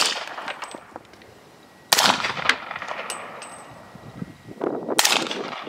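Suppressed 300 Blackout AR rifle firing subsonic rounds through a Rugged Razor suppressor: a shot right at the start, then single shots about two and five seconds in, each a sharp report with a short tail. About a second after the middle shot comes a brief high metallic ring of the bullet striking a steel target.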